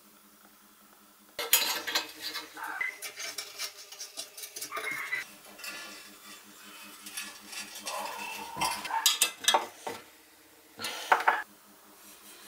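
Metal clinking, scraping and rattling that starts sharply about a second and a half in, as a flat steel cutting blade is handled and screwed onto the tip of a homemade earth auger with a hex key. A last short clatter comes near the end.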